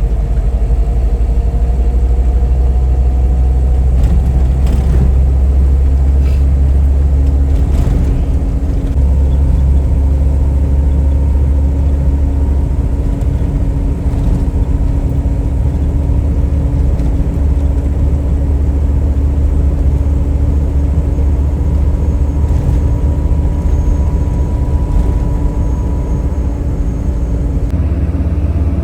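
A vehicle on the move, its engine running steadily at cruising speed under a heavy low rumble from the road, with a few faint knocks.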